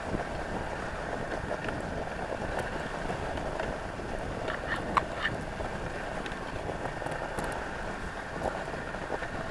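Dogsled running over a snowy trail: the runners give a steady scraping hiss, with wind on the microphone. A few sharp clicks and creaks come around the middle.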